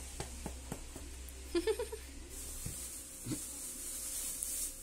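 Thin plastic bag rustling and crinkling as passion fruit are handled in it, with a few light clicks in the first second and a short voice sound partway through.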